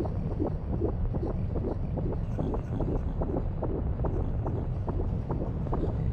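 Fetal heartbeat picked up by a Doppler ultrasound probe at 35 weeks: a fast, even train of whooshing beats, about two and a half a second, over a steady low rumble.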